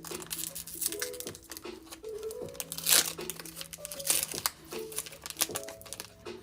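Foil booster-pack wrapper crinkling and being torn open, with the loudest tear about three seconds in.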